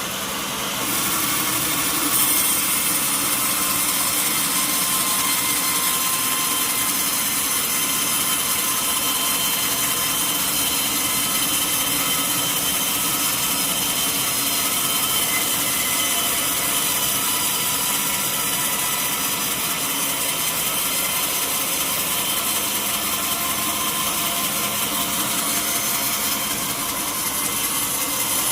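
Sawmill saw cutting lengthwise through a mahogany log: a steady running whine with sawing noise, coming up to full level about a second in.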